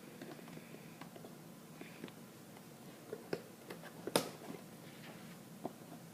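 Scattered light clicks and crinkles of a Lego set's packaging being opened and handled, with a cluster of sharper clicks about three to four seconds in, the loudest just after four seconds.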